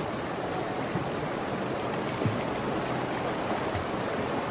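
Fast, cold river water rushing steadily, with a few short low splashes as bison and their calves wade and swim across.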